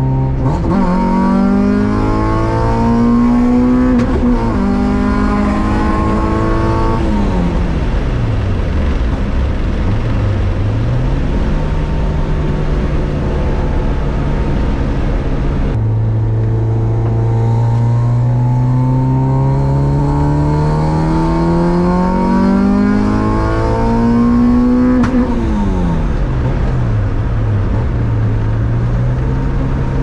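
The naturally aspirated H-series four-cylinder of an H2B-swapped Honda Civic, heard from inside the cabin. It rises in pitch as it accelerates, then falls sharply as the throttle is lifted, before settling into steady running. This happens twice, and the second pull is a long, slow climb of about nine seconds.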